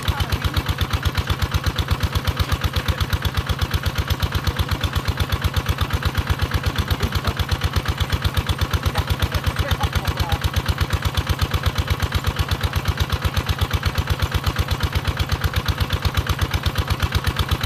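Small engine driving a water pump, running steadily with an even beat of several pulses a second.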